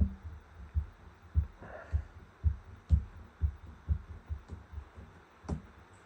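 A run of soft, dull thumps, about two a second, stopping about five and a half seconds in with a last sharper tap.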